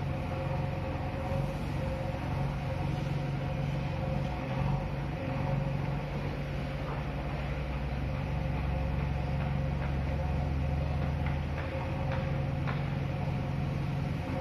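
Diesel engine of a JCB backhoe loader running under load as it digs crushed stone with its rear bucket: a steady low hum with a faint steady whine above it. A few faint clatters come in the second half.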